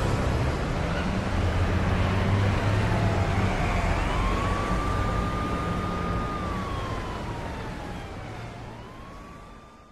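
An emergency-vehicle siren wailing, its pitch sliding slowly down, up, holding, and down again, over a steady low rumble and hiss, all fading out toward the end.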